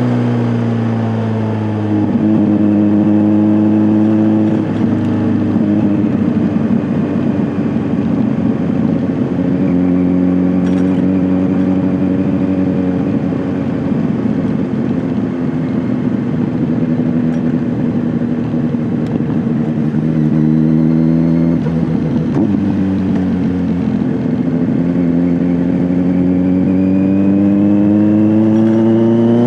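Kawasaki Z900's inline-four engine through an SC-Project S1 aftermarket exhaust, under way: the engine note holds fairly steady with several steps in pitch, then climbs steadily over the last few seconds as the bike accelerates.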